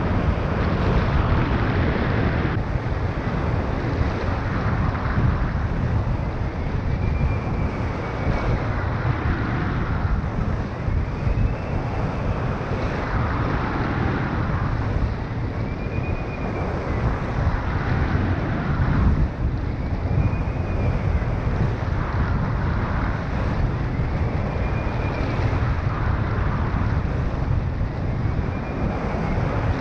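Wind rushing hard over a microphone on a hang glider in flight, a steady low buffeting rumble. A faint whistle rises and falls in pitch about every four to five seconds.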